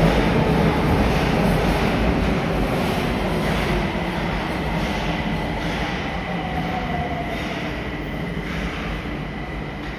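Nagoya subway 2000 series electric train running into the station, a rush of wheel and running noise that fades steadily as the train slows to a stop.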